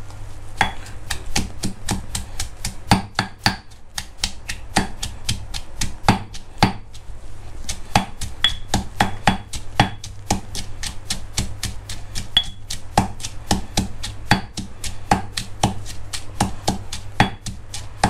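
Stone pestle pounding garlic cloves, bird's-eye chillies and coriander roots in a heavy stone mortar (krok), with repeated sharp knocks about three a second and a few short pauses.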